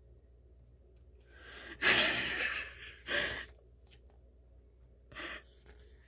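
A woman's long, heavy sigh about two seconds in, followed by a shorter exhale and a faint breath near the end.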